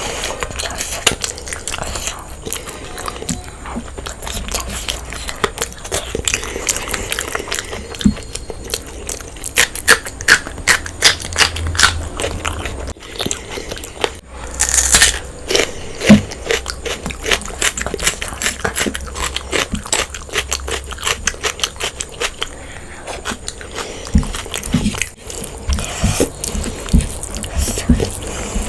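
A person eating a meal of goat head curry and egg biryani close to the microphone: steady chewing and biting with many quick wet smacks and crunchy clicks.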